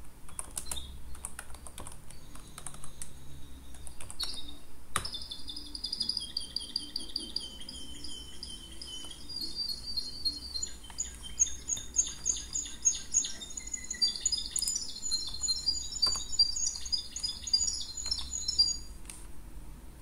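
Computer keyboard typing, a run of quick key clicks, over about the first five seconds. Birds chirping and singing in quick high-pitched warbling phrases then fill most of the rest, with an occasional key click, and stop shortly before the end.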